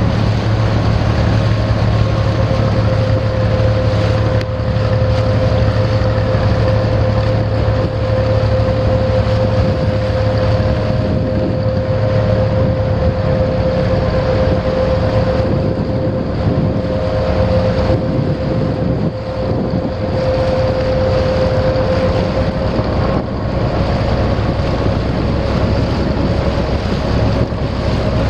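Motorboat engine running steadily, a constant drone with a held higher tone over it, with wind on the microphone.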